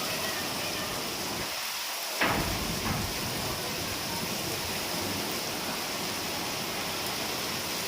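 Rain falling steadily. A single sharp knock about two seconds in.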